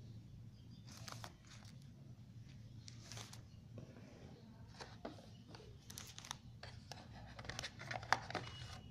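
Cardboard box and packaging of a smartphone being handled: scattered rustles, taps and small clicks, growing busier towards the end, with one sharper click near the end. A steady low hum runs underneath.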